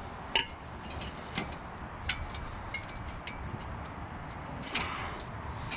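Scattered light metal clicks and clinks of a wrench working a bolt on a metal scoop, with a few short ringing ticks and a small cluster near the end, over steady low background noise.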